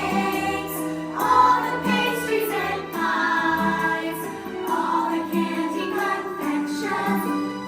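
Christmas-style song: a choir singing over instrumental backing.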